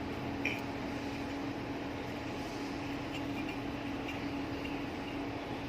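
Steady machine hum with even fan-like noise, with one light metallic tick about half a second in.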